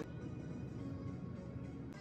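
Background music playing softly, with no speech.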